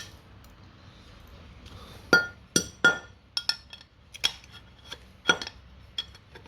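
Metal water-meter parts clinking and knocking together in a run of about eight sharp, ringing clinks at irregular spacing, starting about two seconds in.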